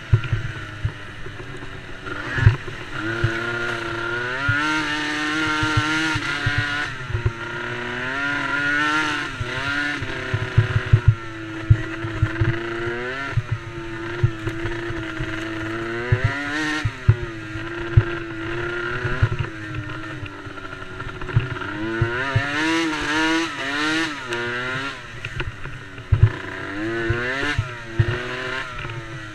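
Small quad engines revving up and falling back again and again, more than one engine at a time, as in a race. Frequent short low thumps run under the engines.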